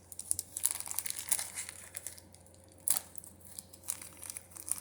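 Packaging crinkling and crackling as it is handled and pulled open to get a surprise toy out. The crinkling is dense at first, pauses briefly, and gives one sharper crack about three seconds in.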